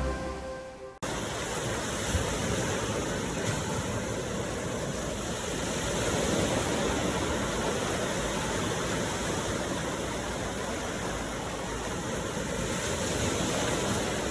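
Ocean surf: a steady, continuous rush of waves, swelling gently now and then. It takes over about a second in as soft background music fades out.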